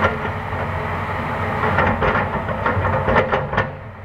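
Hitachi Zaxis 350 excavator's diesel engine running steadily while its bucket dumps a load of coal into a dump truck bed. The coal lands as a rapid clatter of knocks starting about two seconds in and lasting under two seconds.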